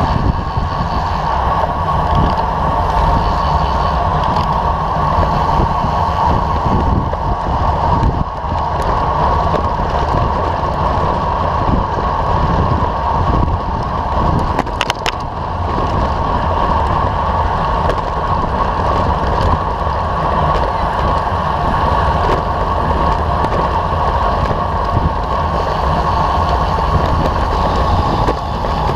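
Wind rushing over the microphone of a camera on a moving road bike, over a steady rumble of tyres and road vibration. A short cluster of clicks comes about halfway through.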